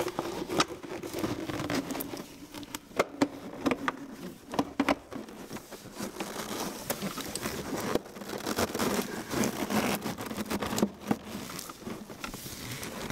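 Volvo 850 Turbo's rubber and plastic air-intake snorkel being pushed and twisted into place by gloved hands: rubbing and scraping with many sharp, irregular clicks and knocks.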